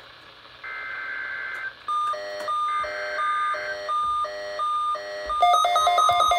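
NOAA weather radio test broadcast: the screechy two-tone digital SAME header bursts, about a second each, play through the radio speakers. From about two seconds in, the Midland weather radio receivers answer with repeating alert beeps. About five seconds in, more alert tones join and the beeping becomes louder and denser as the radios activate for the Required Weekly Test.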